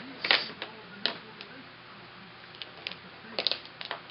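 Copic alcohol markers being handled: irregular sharp plastic clicks and taps, loudest just after the start, with a quick run of clicks near the end.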